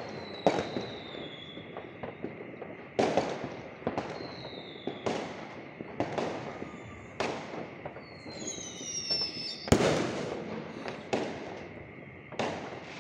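Aerial fireworks bursting: about a dozen sharp bangs, roughly one a second, each fading into a rumbling tail, with the loudest about three-quarters of the way through. Several falling whistles run among the bangs.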